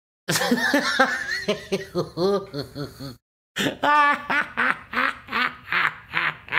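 High-pitched voice laughing: a run of laughter, a short break about three seconds in, then quick repeated 'ha' bursts about three a second.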